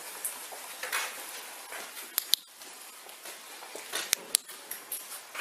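Scuffing footsteps and movement noise with several sharp clicks: two close together about two seconds in and two more about four seconds in.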